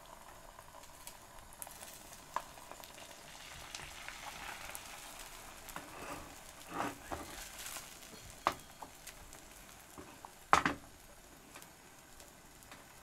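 Beaten egg frying in oil in a pan on high heat, a faint steady sizzle, with a few sharp clicks against the pan, the loudest about three-quarters of the way through.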